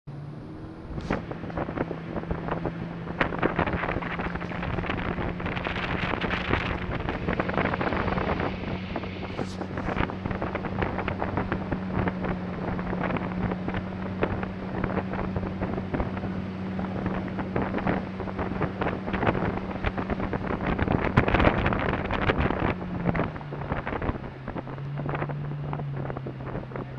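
A small duck boat's motor runs under way at a steady pitch, then drops lower near the end as it throttles back. Heavy wind buffets the microphone over it.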